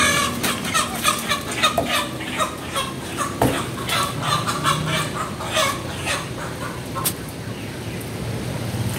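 Chickens clucking continuously in a rapid string of short calls. About three and a half seconds in there is one sharp knock, like a cleaver striking the wooden chopping block.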